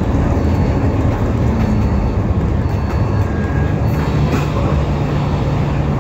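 Alexander Dennis Enviro500 MMC double-decker bus under way, heard from inside the cabin: a steady drone of engine and road rumble. A steady low hum comes in about three and a half seconds in.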